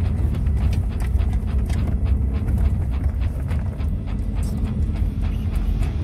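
Low rumble of a car driving slowly over a rough, wet dirt track, heard inside the cabin, with scattered small knocks and taps throughout.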